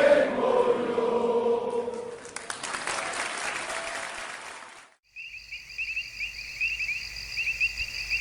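A football crowd singing a chant in unison; the song ends and breaks into applause and cheering, which fades out. After a brief gap, crickets chirp steadily.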